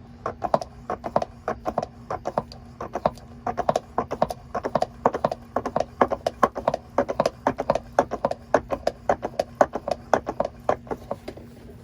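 Hand-operated fluid transfer pump being worked, pushing gear oil into a van's differential: quick, uneven clacking strokes, several a second, over a faint steady low hum.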